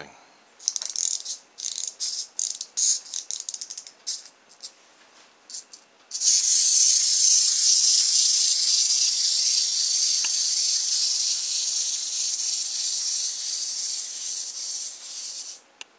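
Small plastic clockwork (spring wind-up) motor in a toy tiger kit. First come short bursts of ratchet clicking as it is wound, then about six seconds in the motor is let go and runs with a loud, steady high whirr of gears as the tiger walks. The whirr slowly weakens as the spring unwinds and stops suddenly near the end.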